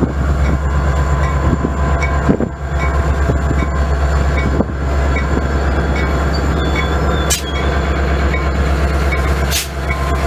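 Metra MP36PH diesel-electric locomotive passing close, its engine running with a steady low drone over wheel and rail noise. A faint ping repeats about twice a second, and there are two sharp clanks near the end.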